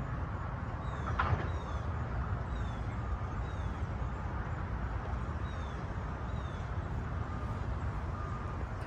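Open-air ambience of a grass training field: a steady low rumble, faint short high chirps from birds falling in pitch again and again, and a single soccer ball kick about a second in.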